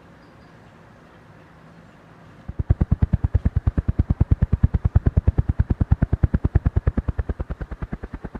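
Ceiling fan blades sweeping air past the microphone: a rapid, even pulsing whoosh, about eight or nine beats a second, that sets in suddenly a little over two seconds in and begins to weaken near the end.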